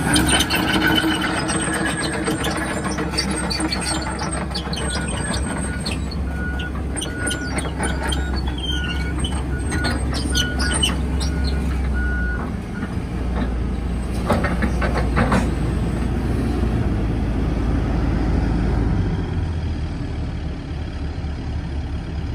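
2015 Hitachi ZX130-5N excavator's diesel engine running steadily while its travel alarm beeps repeatedly, the beeping stopping about halfway through. Occasional clanks and squeaks come from the machine.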